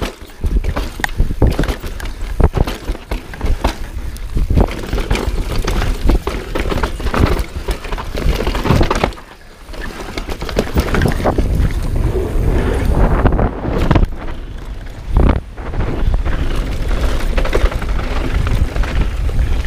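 Mountain bike descending a rough dirt trail at speed: tyres rolling and skidding over dirt and roots, with the chain and frame rattling and wind buffeting the mounted action-camera microphone, in a dense, irregular clatter with many sharp knocks. It goes briefly quieter about nine seconds in.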